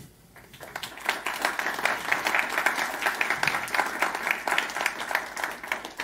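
Audience applauding, many hands clapping at once, swelling over the first second and dying away near the end.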